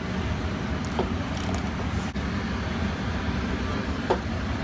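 A steady low rumble of background machinery, with a few light clicks of a utensil against a stainless steel mixing bowl as pasta is tossed with tomato sauce.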